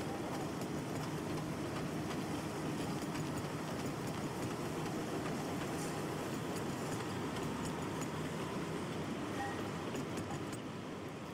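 Stainless-steel passenger cars of VIA Rail's The Canadian rolling slowly out over the station-yard tracks: a steady rumble with scattered clicks of wheels over rail joints and switches, fading near the end as the tail dome car passes.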